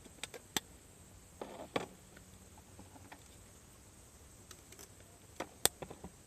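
Campfire of cedar firewood crackling, with sharp irregular pops and snaps scattered through a quiet background, a short run of crackle about a second and a half in and the loudest pop near the end.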